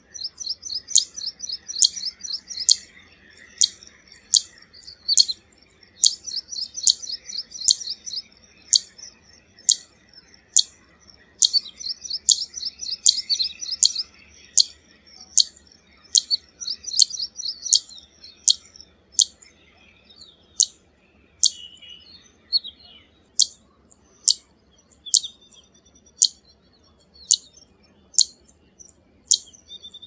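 Zitting cisticola calling: a sharp, high 'zit' note repeated evenly, a little more than once a second. Stretches of fast, high chattering notes run between the zits through the first two-thirds, then die away, leaving the bare zits near the end.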